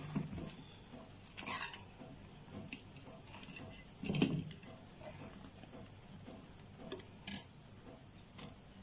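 Fried gram-flour pakoras being put one by one into a bowl of sour spiced water (khatta): a few quiet, scattered soft knocks and plops, with sharper light clicks about a second and a half in and near the end.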